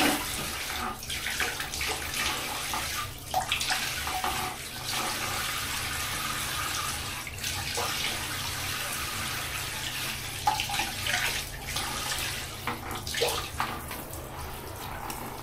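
Tap water running steadily into a bathtub, with a few short splashes and knocks through it, as during a child's hair wash.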